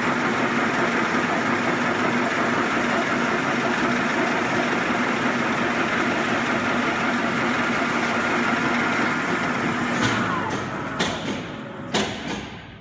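Blanchard No. 18 rotary surface grinder running with a steady mechanical hum while its magnetic chuck turns. About ten seconds in the sound falls in pitch and fades as the machine winds down, with two sharp knocks near the end.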